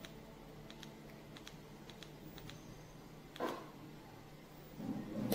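Small plastic buttons on a pedometer clicking as they are pressed, a series of light clicks, several in quick pairs. A single dull knock about three and a half seconds in, then handling rustle near the end.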